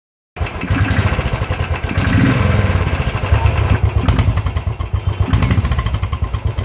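Royal Enfield Thunderbird 500 single-cylinder engine running loudly through its exhaust silencer, with a rapid beat of exhaust pulses that swells a few times as the throttle is opened. It starts suddenly and cuts off abruptly.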